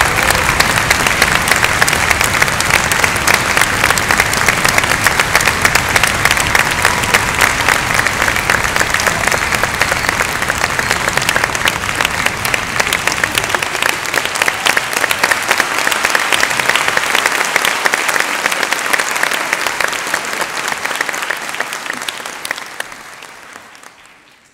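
Large concert-hall audience applauding, a dense, steady ovation of many hands clapping that fades out near the end.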